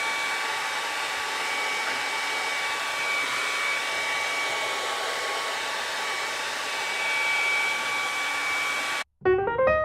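Hand-held hair dryer running steadily, a rushing blow with a thin constant whine, blowing hot air onto a dented car panel to soften it for pushing out. It cuts off abruptly near the end, and piano music starts.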